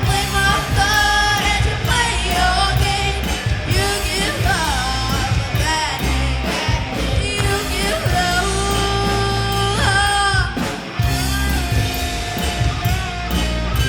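Live rock band playing a hard-rock song: a lead singer over electric guitar, bass and drums, with a brief break about eleven seconds in.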